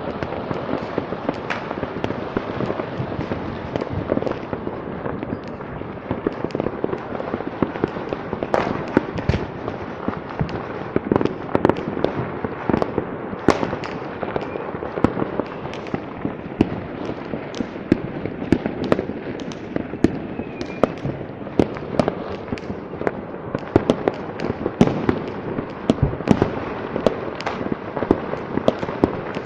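Fireworks and firecrackers going off without pause: a dense stream of overlapping bangs and pops, some sharper and louder than others.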